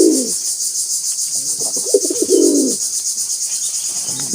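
Domestic pigeons cooing: a low falling coo right at the start and another about two seconds in, over a steady high-pitched pulsing trill that runs underneath.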